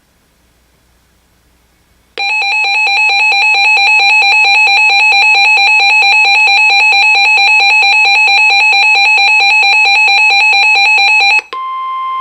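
A weather radio receiver's electronic alert alarm: a loud, rapid warble that starts about two seconds in and runs for about nine seconds, signalling an incoming Special Marine Warning. Near the end it gives way to the steady single-pitch 1050 Hz NOAA Weather Radio warning tone.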